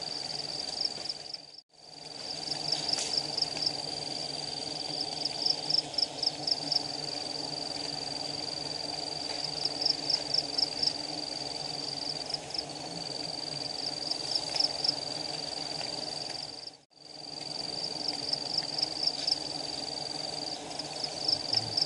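Giant honey bees (Apis dorsata) humming as a swarm around their hive, under a steady high-pitched insect whine that breaks into bursts of rapid pulsing every few seconds and is the loudest sound. The sound cuts out briefly twice.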